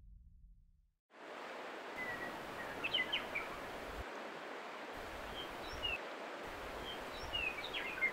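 Small birds chirping now and then over a steady outdoor background hiss, starting suddenly a little over a second in after a brief silence.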